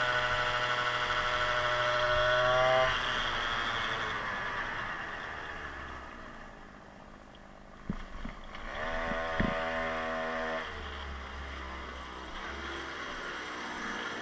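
Scooter X Dirt Dog's 52cc big-bore two-stroke engine running at speed, its pitch rising slightly until the throttle is cut about three seconds in. The sound dies away, two knocks come near the middle, and the engine revs once more, briefly.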